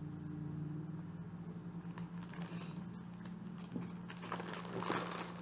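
Faint rustling and a few soft knocks of a skein of yarn and its packaging being handled, over a steady low hum.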